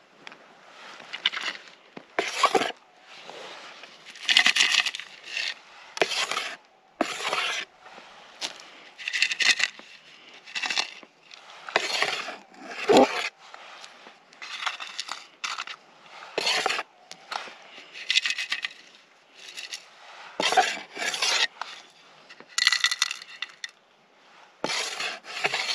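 Repeated short bursts of dirt and small rocks scraping and rattling, about one every second or so, as soil is scooped and shaken out by hand while a metal-detector target is narrowed down.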